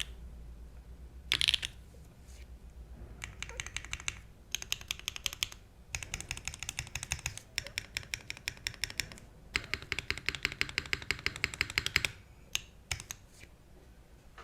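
Mechanical keyboard with stock BSUN TaiChi linear switches on an aluminium plate, no foam, and GMK keycaps, being typed on. One loud keystroke comes early, then runs of fast typing, which trail off to a few last key presses near the end.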